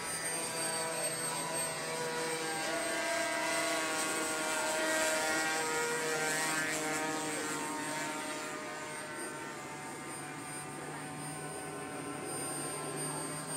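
RC model Batplane in flight, its motor and propeller giving a steady whine of several pitches that shift as it manoeuvres. The whine is loudest about five seconds in and eases off after.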